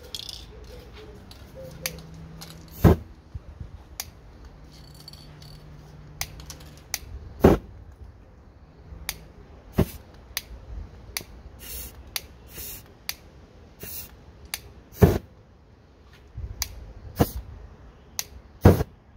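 Spray-paint cans and a hand tool being handled on a worktable: irregular sharp clicks and knocks, four of them much louder and several seconds apart, with a few short hisses of spray.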